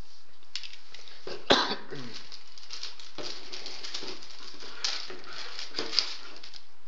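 Plastic wrapping crinkling and rustling as a laptop's charger and cable are unwrapped by hand, with a sharp snap about a second and a half in and a smaller one near six seconds.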